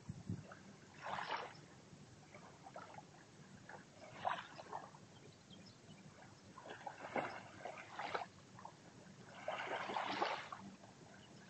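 Small waves lapping and washing onto a sandy, shelly shore in gentle surges about every three seconds, the longest and loudest one near the end.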